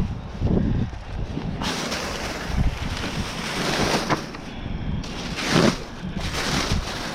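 Wind buffeting the microphone in a steady low rumble, with a few short rustles of bags and items being handled, about four and five and a half seconds in.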